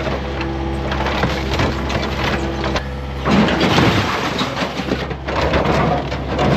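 Excavator's diesel engine running steadily while the machine crushes a car, with loud crunching and cracking of the body throughout.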